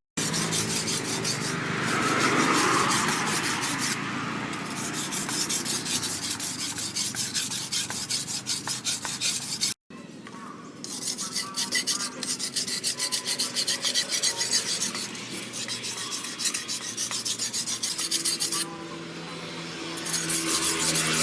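Steel knife blade worked by hand against an abrasive, in quick, even back-and-forth rasping strokes. The strokes break off abruptly about halfway, then resume.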